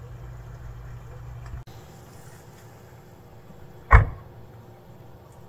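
A steady low hum that cuts off abruptly at about a second and a half, then a single loud, short thump, like a knock or bang, about four seconds in.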